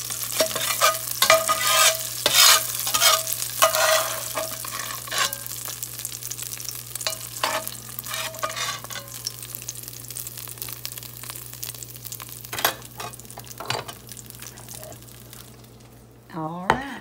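Fried green tomato pieces sizzling in hot grease in a cast-iron skillet while a spatula scrapes and stirs them, with many quick scraping strokes through the first half, then fewer strokes as the sizzle dies down.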